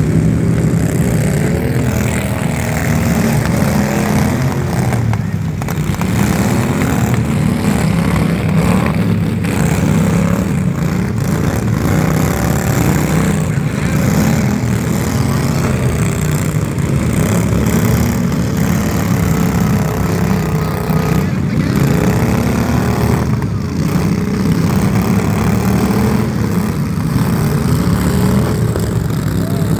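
A loud engine running steadily, with a heavy low drone and slight wavering in pitch.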